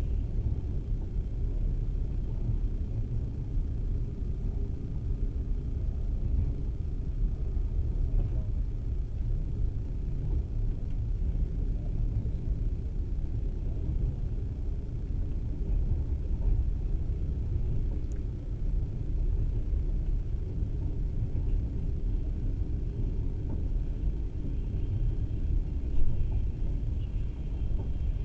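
Steady low rumble of a moving passenger train, heard from inside the carriage.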